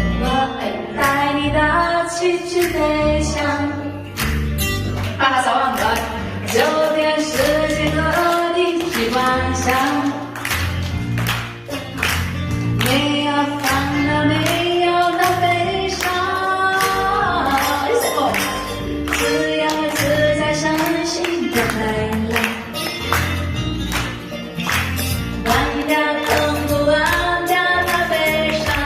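A woman singing a Mandarin pop ballad live over a band or backing track with a steady beat.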